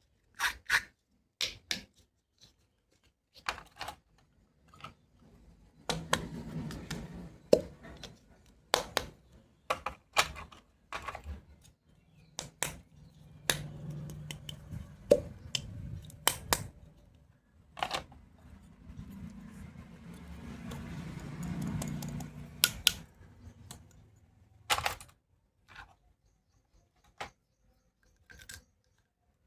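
Plastic toy doctor-kit tools being handled: sharp clicks and taps as pieces are picked up, snapped and set down, with stretches of rubbing and scraping in between.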